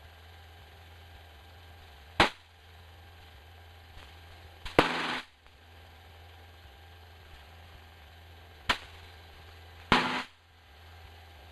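Cockpit radio and intercom audio: a low steady hum broken by sharp clicks, about five in all. Two of the clicks trail into short crackling bursts, typical of a radio squelch breaking or a mic being keyed.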